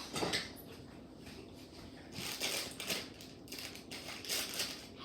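Plastic packaging crinkling and crunching in several short bursts as it is handled and worked at with scissors that won't cut it.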